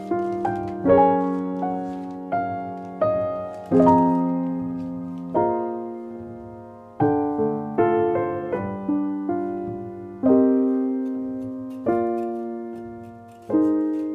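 Slow, gentle solo piano music: notes and chords struck one after another, each left to ring and fade.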